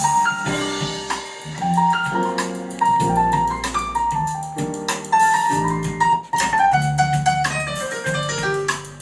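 Recorded music with a keyboard melody over bass notes and light drums, played through a PA power amplifier and speakers for a sound check.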